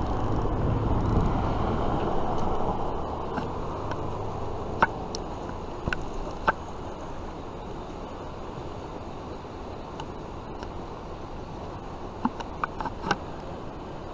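Spinning reel being cranked to wind in a hooked fish, with a few sharp clicks over a steady outdoor rushing noise.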